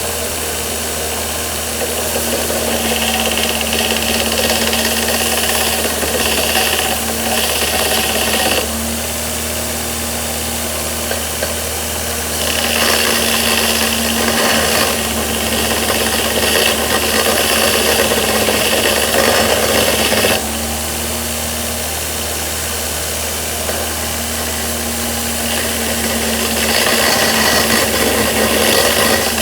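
DeWalt DW578 8-inch bench grinder driving a 2x42-inch belt grinder attachment with a 100-grit belt, its motor running with a steady hum. The end of a steel square tube is pressed against the belt in three grinding passes, each adding a louder, hissing rasp: the first starting about two seconds in, the second in the middle, the last beginning near the end.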